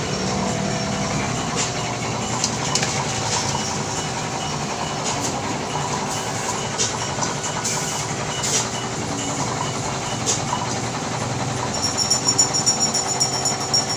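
Steady mechanical background drone with occasional light metallic clicks and taps of hand tools working on a stripped scooter's frame and engine, and a quick run of ticks near the end.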